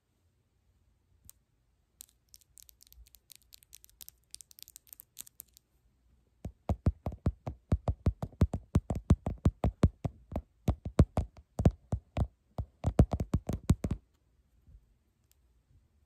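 Long press-on nails tapping and clicking close up. At first there are light, faint clicks, then from about six seconds in, loud, sharp taps come fast, about five a second with short pauses. They stop about two seconds before the end.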